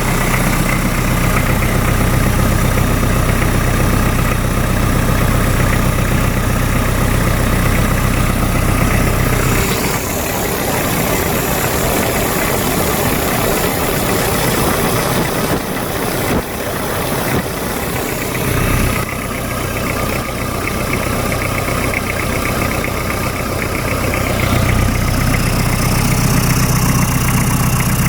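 Hyundai D4BH four-cylinder turbo-diesel engine running at a steady idle. About ten seconds in, its even note breaks up into a rougher, unsteady sound for some nine seconds, then settles back to the steady idle.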